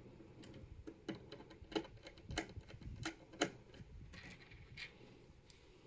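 Irregular small clicks and taps of a 2.5-inch SSD and its mounting bracket being handled and fitted together, the sharpest about two and three and a half seconds in.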